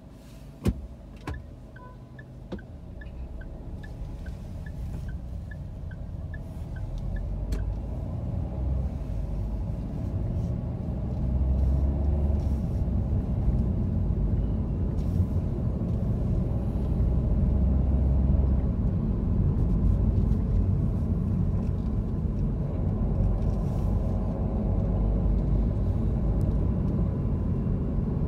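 Car cabin noise, engine and tyre rumble, grows steadily louder as the car pulls away and gathers speed, then holds steady. In the first few seconds there are a few sharp clicks and a run of light, regular ticks, about two a second.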